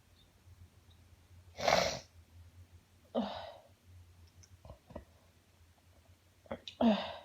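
Three sneezes in a sneezing fit: one about two seconds in, a second a second and a half later, and a third near the end. The first is the loudest.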